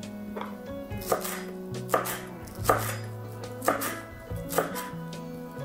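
Kitchen knife chopping fresh greens on a round wooden cutting board: separate knocks of the blade on the wood, about one a second.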